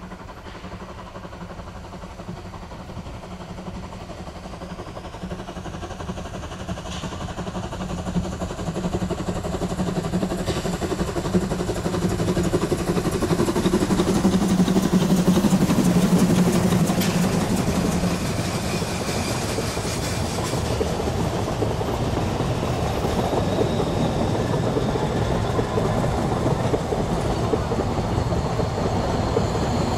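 Narrow-gauge steam locomotive approaching under power, growing steadily louder and loudest as it passes about halfway through. Its train of coaches then rolls by with a clickety-clack over the rail joints.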